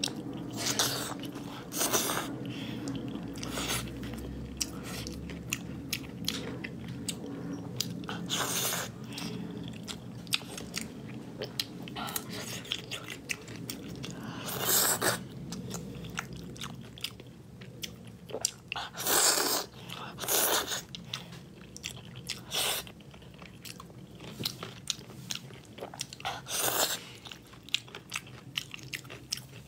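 Close-up eating sounds: biting into and chewing braised pork belly with preserved mustard greens, with many small clicks and a few louder wet mouth sounds every few seconds.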